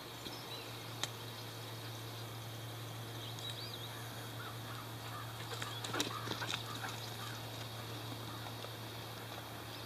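Faint bird calls chirping now and then over a steady low hum.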